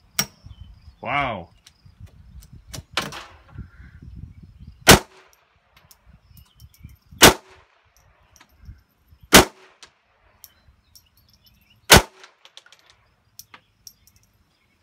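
Smith & Wesson .22 pistol firing four sharp shots, about two to two and a half seconds apart, with fainter clicks between them.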